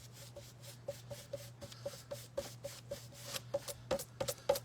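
Paintbrush dabbing and brushing acrylic paint onto a flat canvas artboard, blending the colours: a run of quick soft taps and brushing strokes, about four a second.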